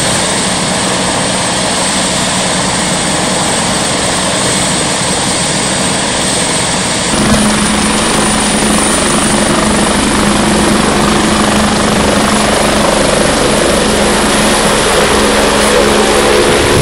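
Air-ambulance helicopter running, its turbine whine and rotor noise steady with a constant low tone. The sound changes abruptly about seven seconds in, then grows slightly louder toward the end as the helicopter lifts off.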